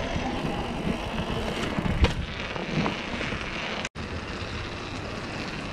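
Mountain bike rolling over paving stones: a steady rumble and rattle from the tyres and bike, with wind noise on the microphone. There is a sharp knock about two seconds in, and the sound cuts out for an instant just before four seconds.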